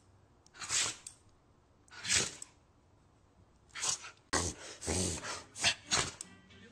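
A dog sneezing over and over in short, sharp bursts, a few at first and then in quicker succession.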